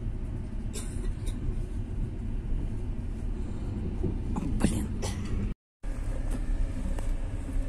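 Passenger train running, a steady low rumble heard from inside the carriage, with a few short clicks. The sound cuts out for a moment about two-thirds of the way through.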